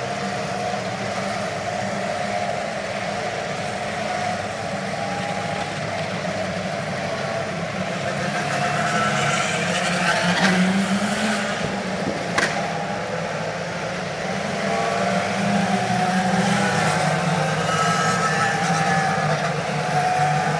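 Open-wheel race car engines running as the cars pass through the corner, a steady drone that swells as a car goes by about ten seconds in. A short sharp click comes a couple of seconds later.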